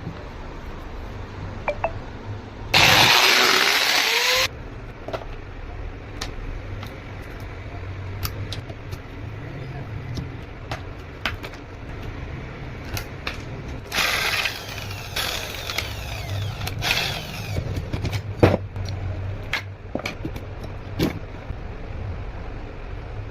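Angle grinder being worked on during a bearing repair: scattered metal clicks and knocks from handling the tool and its parts. A loud, noisy burst of about two seconds comes near the start, and more short bursts with a rising and falling whine come around the middle.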